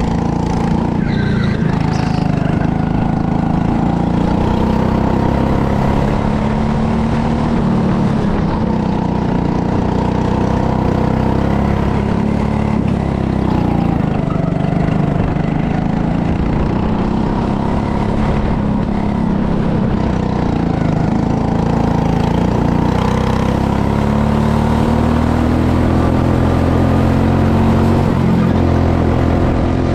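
Go-kart's small petrol engine running close under the driver, its pitch rising and falling as the throttle is opened and eased through the corners, with a long climb in pitch near the end.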